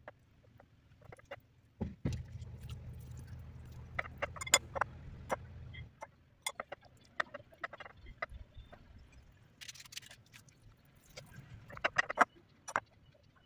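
Scattered light taps and clicks of hands working soft dough and setting shaped cheese poğaça pastries on a tray. A low hum runs for a few seconds after the start, and there is a brief hiss near the middle.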